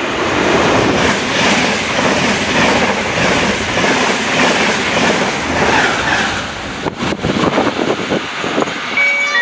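Irish Rail Enterprise passenger train, with class 201 locomotive 207, passing close at speed: a loud rush of wheel and air noise with clickety-clack over the rail joints. After about six and a half seconds it dies away, with a few last sharp clacks.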